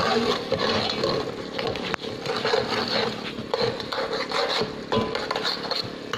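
A metal spoon scraping and stirring against the inside of an aluminium pot, with a thin stream of water trickling into it.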